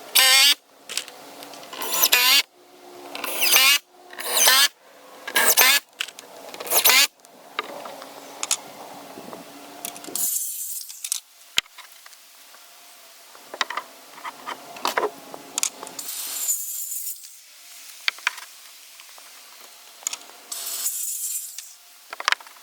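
A saw cutting through a board in regular strokes about a second apart, each stroke louder toward its end, stopping after about seven seconds. Then scattered clicks, knocks and rubbing of wood and tools being handled, with two short hissing rustles near the end.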